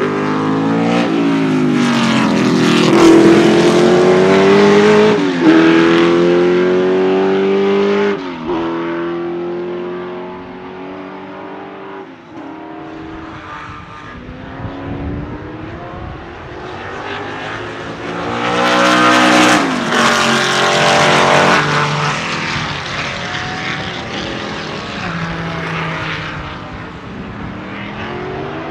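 Lola T70 MK3B's Chevrolet V8 race engine accelerating hard, its pitch climbing through three gears with a sharp drop at each upshift, then falling away. About two-thirds of the way in, a loud engine climbs in pitch through the gears again, then fades.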